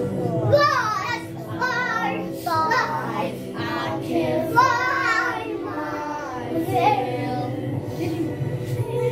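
A young girl singing a song, with music playing under her voice.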